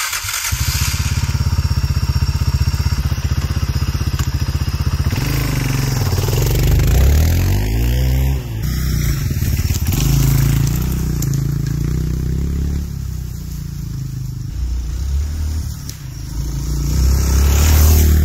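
Suzuki DR350 single-cylinder four-stroke engine starting and running at a steady idle for the first few seconds, after a year in storage and a carburetor clean. From about five seconds in it revs up and down as the bike is ridden along a dirt trail, its note rising and falling as it passes.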